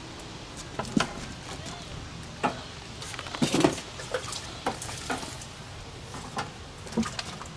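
Water splashing and dripping in an aquarium as a mink paddles and dips in and out from a platform, a series of separate small splashes with the largest about three and a half seconds in.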